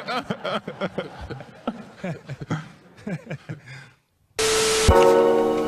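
Indistinct male voices muttering and calling for about four seconds, then a moment of silence. A sudden burst of hiss follows, and background music with held notes starts near the end.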